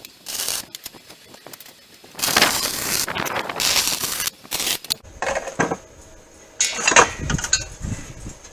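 Metalworking noise: about two seconds in, two or three loud bursts of harsh scraping or grinding on steel, then a string of sharp metal clinks and knocks.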